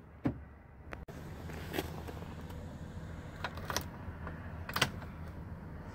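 Scattered light clicks and knocks of handling inside the cab of a tri-axle dump truck, over a low steady hum that comes in about a second in.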